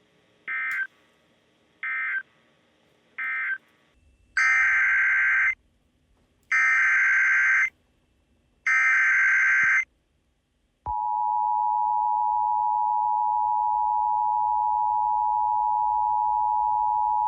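Emergency Alert System digital data bursts: three short bursts of buzzing data tone, the end-of-message code, then three longer, louder bursts of the SAME header for the next alert. About eleven seconds in, the steady attention tone starts and holds.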